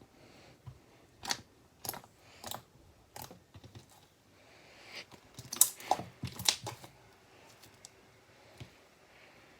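Glitter slime being poked, stretched and squeezed by hand, giving sharp clicks and pops: a few spaced about half a second apart, then a quick cluster of louder ones partway through.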